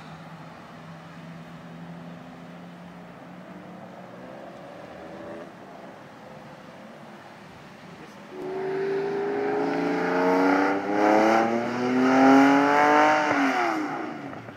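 A low steady engine hum, then about eight seconds in a sports car accelerates hard: the engine note climbs loudly, dips at a gear change, climbs again and falls away near the end.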